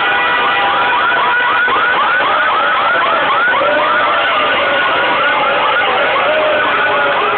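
Noisy street celebration: a siren-like electronic tone whoops upward over and over, about three times a second, over steady car-horn tones and crowd noise. From about four seconds in, a slower, lower wavering tone joins in.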